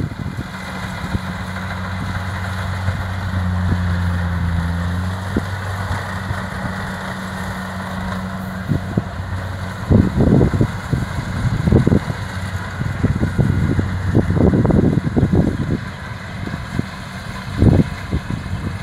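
Kubota DC-70 combine harvester's diesel engine running steadily as it harvests rice, a low even hum. From about ten seconds in, irregular gusts of wind rumble on the microphone.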